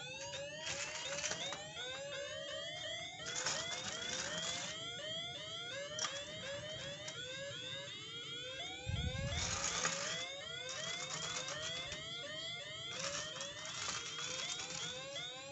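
Electronic toy sound effect, a warbling alarm-like tone made of short rising chirps repeated several times a second, with hissy bursts a few times and a low thump about nine seconds in.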